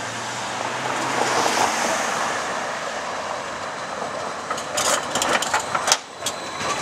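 Bombardier Flexity Outlook tram rolling past close by on curved track with a steady rolling noise; from about four and a half seconds in, a quick run of sharp clicks and clacks as its wheels cross rail joints and crossings.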